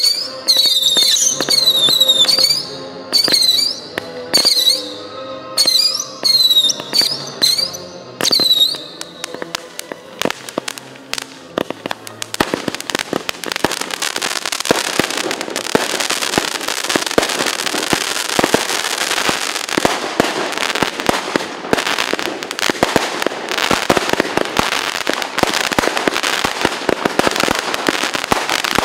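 Fireworks: a run of short, high whistles for the first several seconds, then a dense barrage of crackling and popping explosions from about twelve seconds in.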